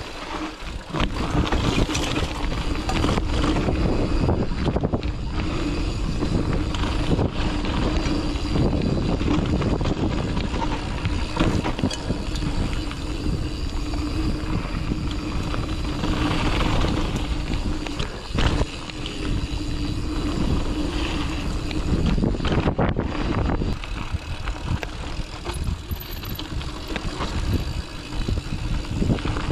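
Giant mountain bike riding down a dirt trail: tyres rolling over the ground and the bike rattling and knocking over bumps, over a constant low rumble.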